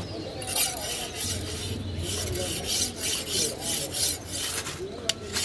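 A long steel knife blade being sharpened on a flat whetstone, scraped across the stone in quick, even strokes of about three a second, starting about half a second in.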